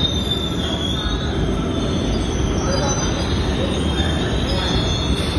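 Cairo Metro Line 1 Alstom 1981-stock train (5700 series) rolling slowly into a platform as it brakes, with a steady low rumble and a high squeal from the wheels that wavers slightly in pitch.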